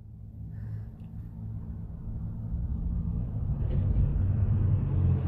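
Low vehicle engine rumble heard from inside a car, growing steadily louder.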